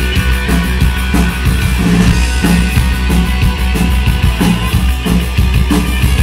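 Punk rock band playing live at full volume: a drum kit keeping a fast beat with heavy bass and distorted electric guitar, without vocals.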